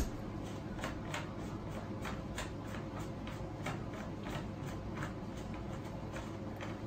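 Light, irregular plastic clicks and ticks, about two or three a second, as a red thumb throttle on an electric scooter's handlebar is handled and fitted, with one sharper click right at the start.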